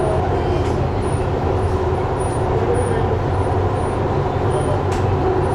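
Metro train running between stations, heard inside the carriage: a steady low rumble with faint passenger chatter in the background and a single click near the end.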